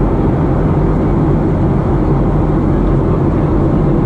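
Boeing 737-700 cabin noise in flight: the CFM56-7B turbofan engines and the airflow over the fuselage make a steady, deep drone.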